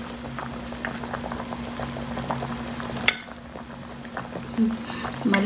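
Beef rib soup with potatoes bubbling at a simmer in a stainless steel pot, with the scrape and knock of a large metal spoon scooping in it and one sharp clink of metal on the pot about three seconds in. A steady low hum runs underneath.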